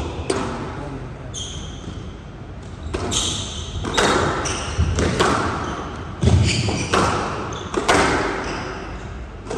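Squash rally: the ball cracks off rackets and the court walls about once a second, each shot echoing in the hall. Short high squeaks from the players' shoes on the court floor come between the shots.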